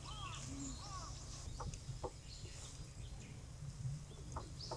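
Faint bird calls: a few short arching chirps in the first second, then scattered soft clicks, over a low steady hum.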